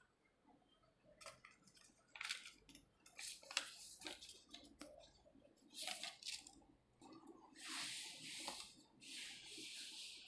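Paper rustling and crinkling as a handmade greeting card is handled, turned over and opened out, in several short bursts and one longer stretch near the end.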